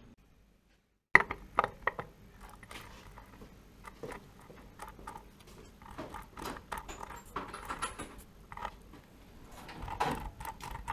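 After a second of silence, irregular metallic clinks, taps and rattles of hand tools working on the scooter's opened transmission as the worn transmission bearing is taken out.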